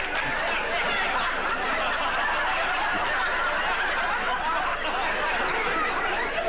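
Studio audience laughing in one long, unbroken wave.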